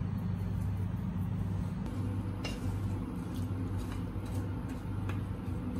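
Steady low hum, with a few faint knocks from a wooden spatula stirring cut vegetables in a pot.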